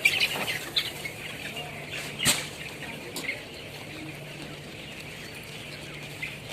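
Chickens in a poultry farm, faint chirping and clucking, with a few sharp knocks, the loudest about two seconds in, over a steady low hum.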